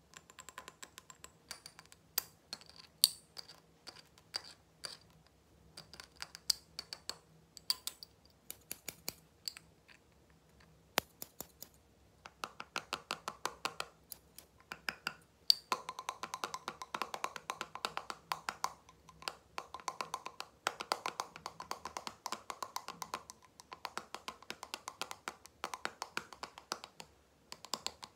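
Fast, hard finger tapping on small containers: first on a blue plastic ball-shaped container, then, from about halfway, a quicker, denser run of taps on a glass jar with a white metal screw lid, each tap ringing briefly.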